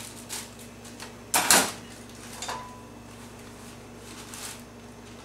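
Handling noise as dry cake mix is poured from a plastic bag into a glass mixing bowl: soft rustles and one loud clatter about a second and a half in, over a steady low hum.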